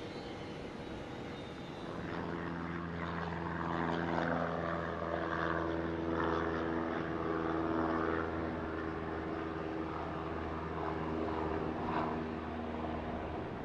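Airplane engines running with a steady, even drone and hum that grows louder about two seconds in and cuts off near the end.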